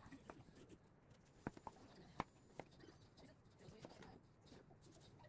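Kitchen knife cutting through watermelon rind on a wooden cutting board: a handful of faint, separate knocks and clicks as the blade goes through and meets the board, the sharpest about two seconds in.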